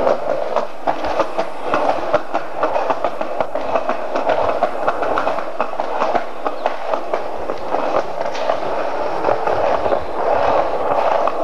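Skateboard wheels rolling fast over concrete pavement close to the microphone: a steady rolling noise with frequent clacks as the wheels cross the joints in the slabs.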